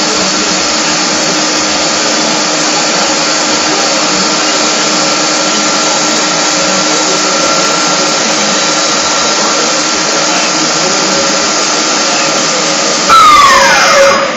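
Factory machinery running with a steady, loud mechanical drone and several constant hums. About 13 seconds in there is a loud, falling whine lasting about a second.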